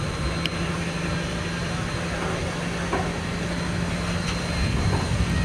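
A railroad turntable turning a 4-6-0 steam locomotive: a steady low hum over a rumbling mechanical noise, with a few faint clicks.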